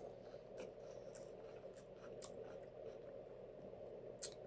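Faint chewing of a mouthful of burrito: scattered soft mouth clicks and smacks over a steady low hum, with one sharper click near the end.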